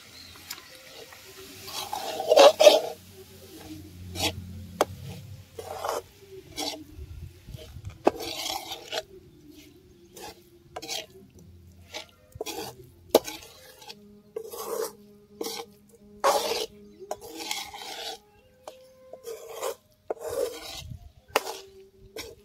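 Metal ladle stirring and scraping thick fried goat's blood against a metal pot: a rasping scrape roughly once a second, the loudest about two seconds in.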